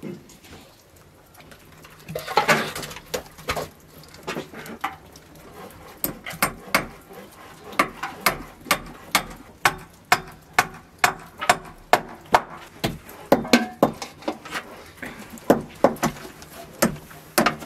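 A hammer striking wood in a long, steady series of sharp blows, about two a second.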